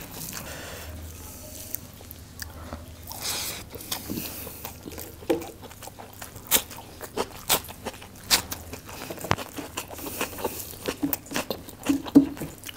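A person eating with his hands: chewing rice and chicken korma and crunching a raw onion slice, with irregular sharp clicks and smacks.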